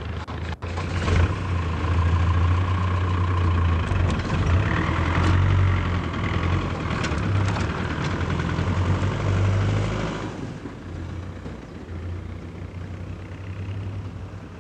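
Engines of pickup trucks running and pulling away, the sound fading after about ten seconds as they drive off.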